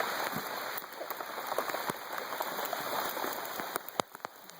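Heavy rain falling and pattering on surfaces close to the phone, with scattered sharp drop hits; it eases a little near the end.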